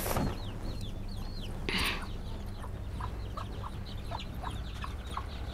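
Chickens calling: a run of short, high, falling peeps, several a second, with a few lower clucks in the second half. A short scuff about two seconds in.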